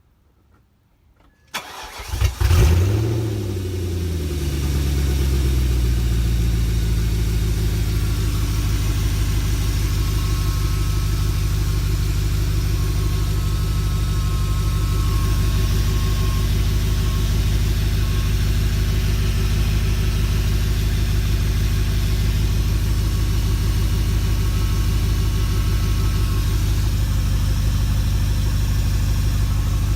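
BMW E39 540i's 4.4-litre V8 starts about a second and a half in, flares briefly and settles to a steady idle. This is its first run after a water pump replacement, with the fan clutch and fan blades off so the cooling system can be bled and checked for overheating.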